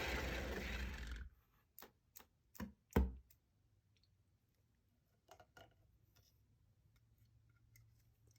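Cake-decorating turntable spun by hand with paint on it: a rushing whir that stops about a second in, then a few sharp clicks and knocks, the loudest about three seconds in, and some fainter ticks after.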